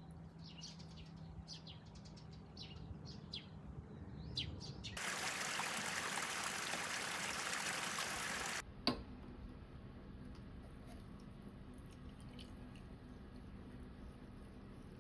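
Birds chirping over a quiet background. About five seconds in, a loud, steady rush of flowing water starts abruptly and cuts off just as suddenly some three and a half seconds later. A quieter background follows, with a single click and a few faint chirps.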